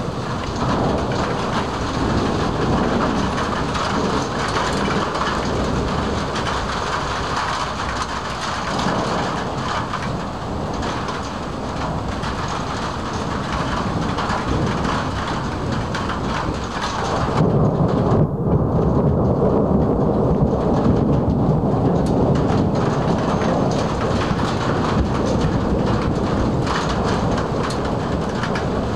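Thunderstorm: heavy rain hissing under almost unbroken rolling thunder. About 17 s in, a louder, deeper rumble of thunder takes over and the higher hiss falls away.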